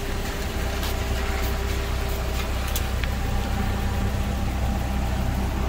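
Steady low motor hum with a faint held tone, and a few light ticks in the first three seconds.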